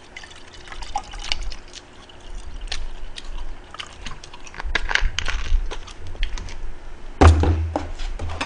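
Carbonated soda poured from a plastic bottle into a glass, with a steady fizzing crackle of small pops. A loud, deep thump on the table comes about seven seconds in.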